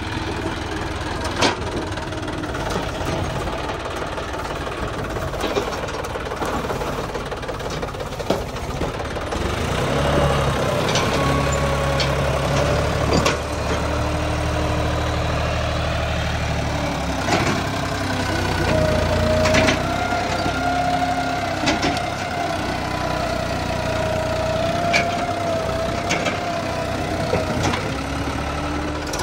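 John Deere 5050E tractor's diesel engine running under load while its front-mounted blade scrapes soil, its pitch drifting up and down. The engine grows louder about ten seconds in and eases off near the end, with scattered clicks and knocks.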